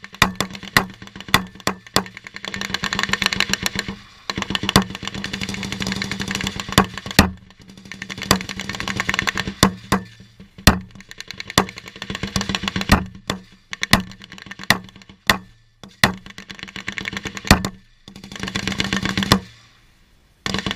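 Infantry live fire: sharp single gunshots throughout, between several long bursts of rapid automatic machine-gun fire lasting a second or two each. The firing stops briefly near the end.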